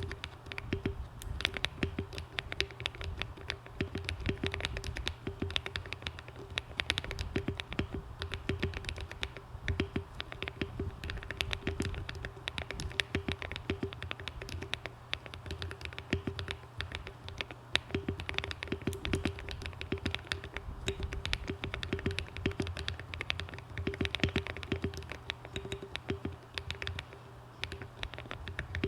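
Continuous fast typing on a Monsgeek M1 aluminium-case mechanical keyboard with hand-lubed Akko Cream Yellow linear switches, tape-modded and foam-dampened, giving a dense run of soft keystroke clacks. A faint steady hum sits underneath.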